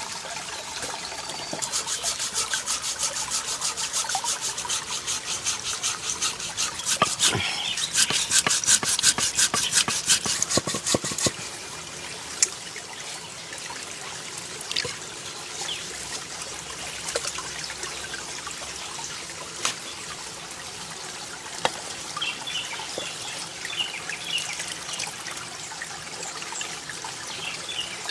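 A shallow stream trickling over rocks, with wet splashing and squelching as hands work crab mash in water. For the first ten seconds or so a rapid, even run of strokes sounds over it, then it stops and only the water and occasional soft splashes remain.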